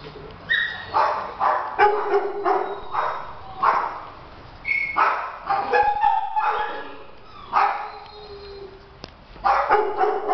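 Dog barking and yipping in quick runs of short barks, with a lull about eight seconds in before the barking picks up again.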